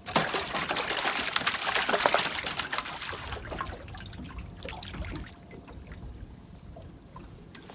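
Water splashing and trickling, starting suddenly, loudest over the first three seconds, then dying down to a faint trickle.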